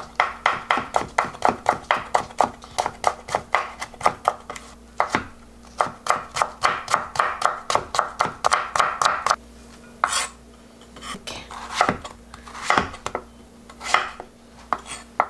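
Chef's knife rapidly slicing bottle gourd into thin strips on a wooden cutting board, about five knife strikes a second. The fast chopping stops about nine seconds in, and a few single, slower cuts follow as the gourd is cut into large chunks.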